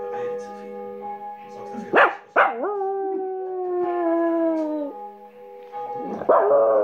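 Small long-haired dog howling: a short yelp about two seconds in, then a long howl that slides slowly down in pitch, and a second howl starting near the end. Steady held notes of music sound underneath throughout.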